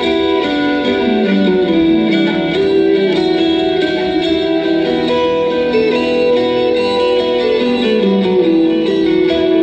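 Music led by an effects-laden guitar, with sustained notes that move slowly from one pitch to the next.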